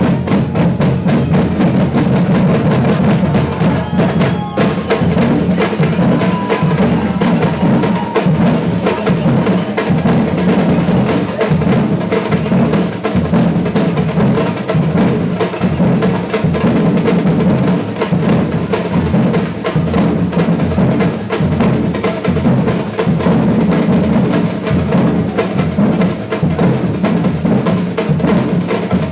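Brazilian batucada percussion ensemble playing a loud, steady, dense groove: deep surdo bass drums under sharp higher drum strokes.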